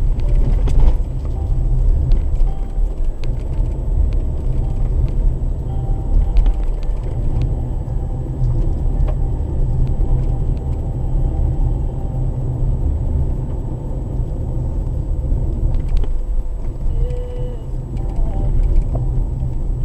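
Car driving along a road heard from inside the cabin: a steady low rumble of engine and tyres on the road surface.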